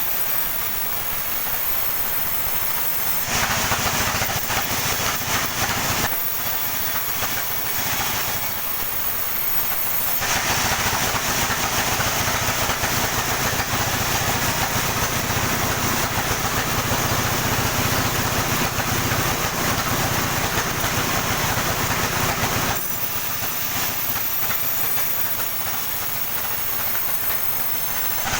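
Sawmill saw sawing a coconut palm trunk, running steadily with a thin high whine and growing louder and harsher while it cuts: briefly a few seconds in, then for a long pass from about ten seconds until near the end.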